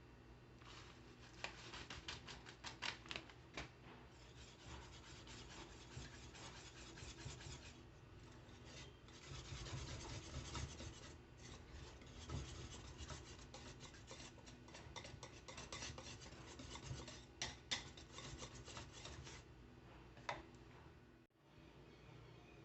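Faint, irregular scraping and rubbing of a kitchen utensil against cookware, with small clicks scattered through it.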